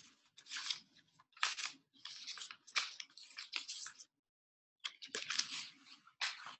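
Irregular bursts of rustling and crackling close to the microphone, each a fraction of a second long, broken off by a short silence about two-thirds of the way through.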